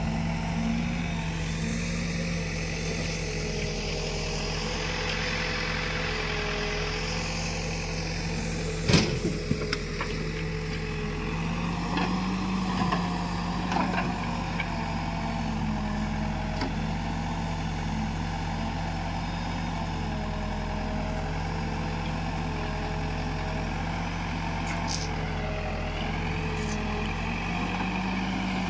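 Escorts Digmax backhoe loader's diesel engine running steadily under load, with the hydraulic whine rising and falling as the boom and bucket dig. There is one sharp knock about nine seconds in and a few lighter knocks a few seconds later.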